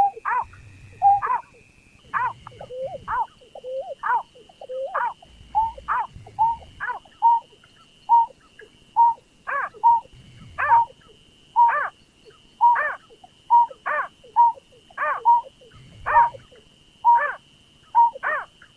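Lure recording of the rice-field bird known locally as berkik, pekung or burcet: short calls, each dropping in pitch, repeated about twice a second without a break. A steady high-pitched tone runs under them.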